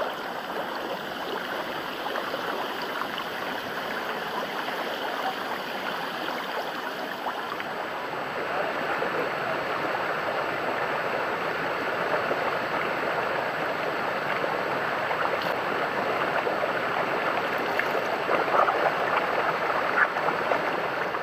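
Thermal-pool water bubbling and churning in a steady rush, with a couple of louder splashes near the end.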